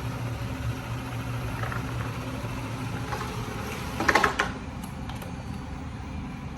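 Shark AV911S EZ robot vacuum running with a steady hum while it drives back to its charging dock. About four seconds in there is a brief, louder rattling noise, and after that the hum drops.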